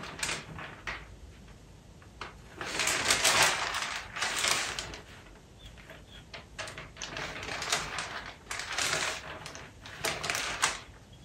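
A sheet of printer paper rustling in several short, irregular bursts as it is held lifted back to check the traced lines underneath.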